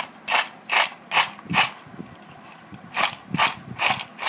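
Crunchy homemade rice kurkure snacks crunching in quick, even crunches: a run of four, a pause of about a second, then four more.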